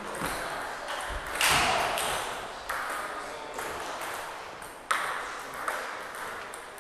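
Table tennis balls clicking off bats and tables in an echoing sports hall, scattered irregular strikes. The loudest is a sharp crack about a second and a half in.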